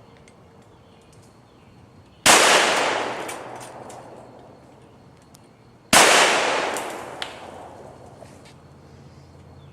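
Two .45 ACP pistol shots from a Glock 21 with an extended 6-inch Lone Wolf barrel, about three and a half seconds apart, each followed by a long echoing decay.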